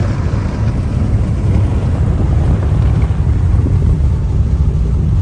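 Car travelling at highway speed: a steady low rumble of road and wind noise.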